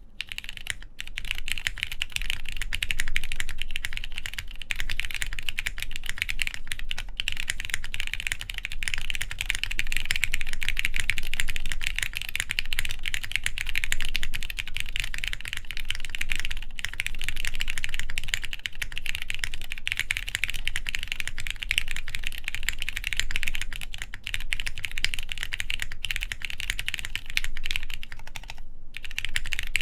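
Fast, continuous typing on a daji seis cero prototype mechanical keyboard: plateless build, lubed Cherry MX Black linear switches and PBT keycaps. The keystrokes start abruptly after quiet and run as a dense clatter, with a short pause about a second before the end.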